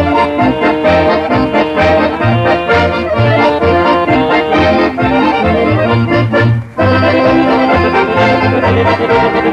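Accordion orchestra playing a polka from a 78 rpm record of about 1952, over a steady bass beat. The playing breaks off briefly about two-thirds of the way through, then carries on.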